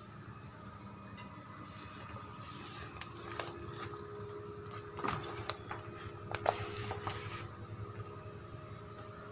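A large sheet of paint protection film rustling and crinkling as it is handled and laid over a motorcycle fuel tank, in two stretches with a few sharp clicks, over a steady hum.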